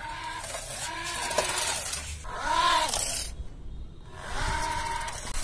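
An animal calling over and over: drawn-out pitched cries that rise and fall, one every second or two.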